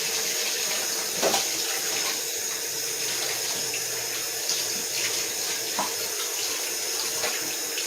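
Kitchen tap running steadily into a sink as a whole raw chicken is rinsed under it, with a few faint knocks of handling.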